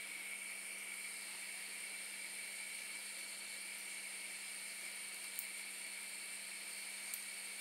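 Ventilator fan running with a steady whir and hiss, with a couple of faint clicks in the second half.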